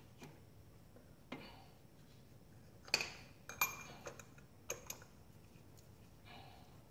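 Metal hand tools clinking against engine parts: a handful of sharp separate clinks, the loudest about three seconds in.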